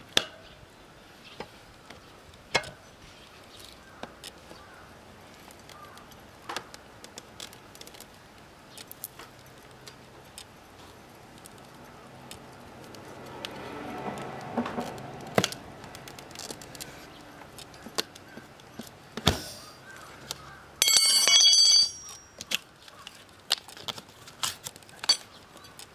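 Knobby motorcycle tyre being levered onto a spoked rear rim by hand: scattered clicks and knocks of steel tyre levers against the rim and tyre. About 21 seconds in comes a short, loud ringing metallic clatter, the loudest sound.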